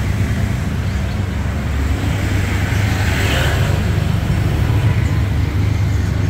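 Honda Brio's four-cylinder engine running at low speed through a new aftermarket exhaust (racing downpipe and front pipe with an HKS bolt-on muffler), a steady low exhaust rumble as the car creeps and holds.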